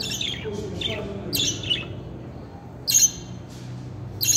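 Budgerigars giving short, sharp chirps and squawks, several in a row, with the loudest calls about three seconds in and again near the end.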